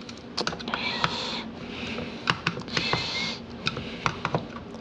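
Freshly reassembled Wessel Werk EBK280 power nozzle being turned over by hand to settle its parts: irregular plastic clicks and rattles, with two short swishes about one and three seconds in.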